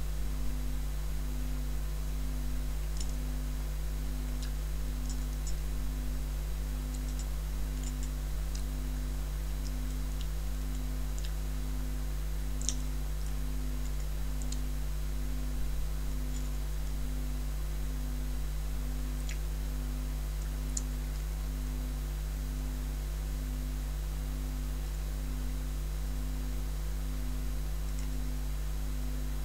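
Scattered light clicks of chopsticks against hard Skittles candies, over a steady low hum and a faint tone that pulses a little more than once a second.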